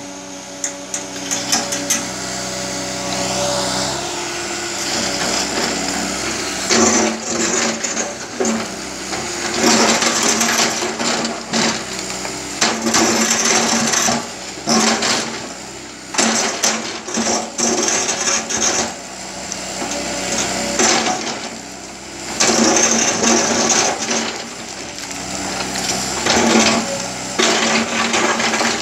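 Tracked JCB excavator's diesel engine running steadily while the bucket digs, scrapes and grinds through broken rock, with stones clattering in repeated loud stretches of a few seconds each.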